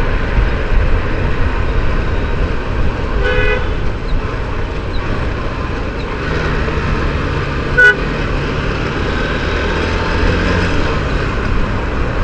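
Vehicle horns honking in slow road traffic over the steady low rumble of a moving motorcycle: one honk about three seconds in, and a shorter, louder blast about eight seconds in.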